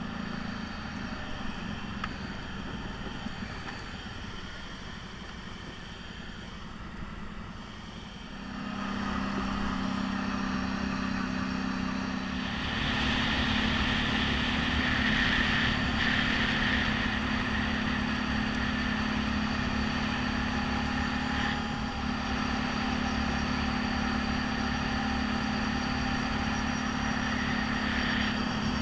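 ATV engine running steadily, quieter at first, then louder about a third of the way in and a little louder again soon after.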